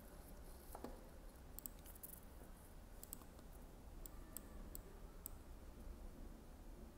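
Faint, irregular clicks of a computer mouse being clicked, a few times over several seconds.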